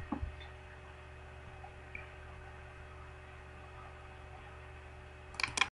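Faint steady electrical hum with light hiss: the room tone of a desk microphone. Near the end comes a short cluster of clicks, and then the sound cuts off to dead silence.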